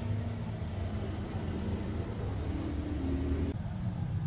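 A motor engine running with a steady low rumble, its pitch rising a little about three seconds in.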